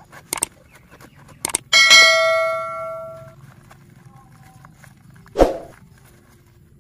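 Subscribe-button animation sound effect: a few quick clicks, then a bright notification bell ding that rings and dies away over about a second and a half. A single dull thump follows a few seconds later.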